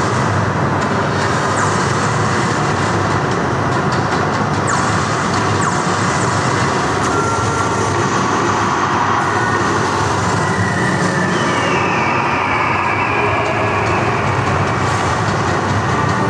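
Loud, steady rushing rumble from a projection show's soundtrack played over speakers, with a faint falling whistle-like glide about two thirds of the way through.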